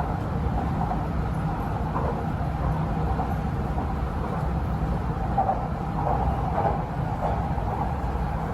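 MRT Purple Line electric train running between stations, heard inside the carriage: a steady low rumble with a mid-pitched hum.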